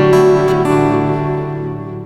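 Background music led by acoustic guitar: strummed chords ringing out and fading away toward the end.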